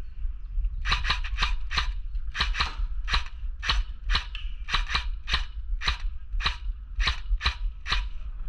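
Airsoft gun firing a rapid string of single shots, about three or four sharp clicks a second, starting about a second in and stopping near the end.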